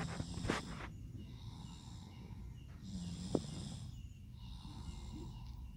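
A sleeping person snoring, with a snore on each breath about every one and a half to two seconds and a few short clicks in between. The uploader puts the snoring down to tiredness from a missed afternoon nap.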